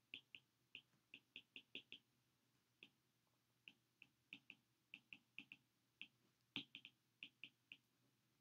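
Faint, irregular clicks of a stylus tip tapping on a tablet's glass screen as words are handwritten, coming in quick clusters of several per second with short gaps.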